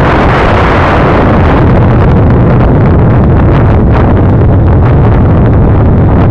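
Heavy wind buffeting on a moving ride-mounted camera's microphone, with rattling from the tyres over loose gravel and stones, from about a second and a half in.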